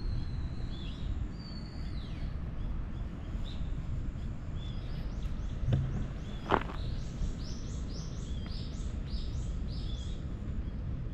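A bird calling over a steady low outdoor rumble: a few whistled notes, then a quick run of short falling chirps, about two or three a second. A single sharp click about two-thirds of the way through is the loudest sound.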